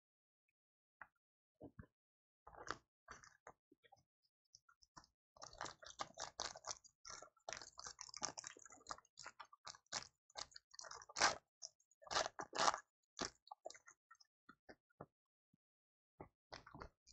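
Foil trading-card pack wrapper crinkling and tearing as it is opened by hand: a faint run of quick, irregular crackles, thickest in the middle and dying away, with a few more crinkles near the end.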